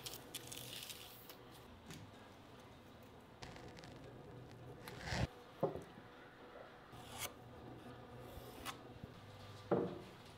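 Faint handling sounds at a wooden workbench: a pencil scratching on a board, then scattered light knocks and taps, the last a sharper knock as a brass bench dog is set into a benchtop hole near the end.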